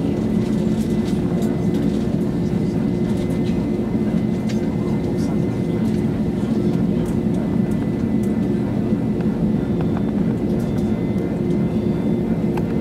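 Airbus A321-200's jet engines running at taxi power, heard from inside the passenger cabin as a steady hum with a strong low drone.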